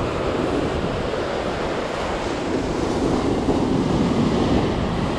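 Rough, storm-churned surf breaking steadily on the beach, with wind buffeting the microphone.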